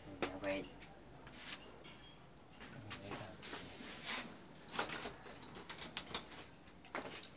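Crickets trilling steadily in a high, even tone, with a few light knocks and clicks scattered through.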